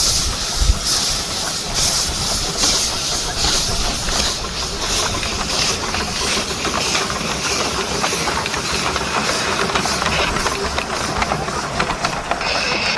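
A pair of 7¼-inch gauge Tinkerbell miniature steam locomotives working a train slowly past, hissing steam with a slow pulsing chuff, then rattling and clicking as the train goes by in the second half.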